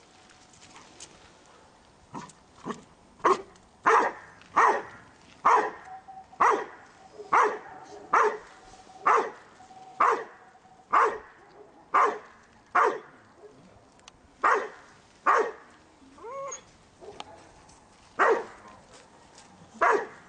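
Border Collie barking steadily and insistently, about one loud bark a second. The barks start a couple of seconds in and pause briefly near the end for a short whine. This is the Schutzhund hold-and-bark at the hiding place after the blind search.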